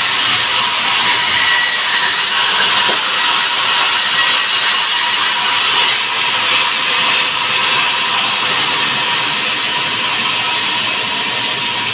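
Sawmill band saw running and ripping timber into planks: a steady, loud rushing whine with a faint steady tone.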